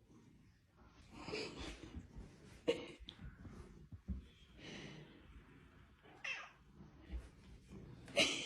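Domestic cat meowing several times, short calls a second or two apart.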